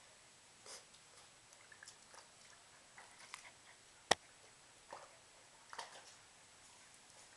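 A puppy splashing and lapping at water in a plastic basin: scattered, irregular soft wet sounds, with one sharp knock about four seconds in.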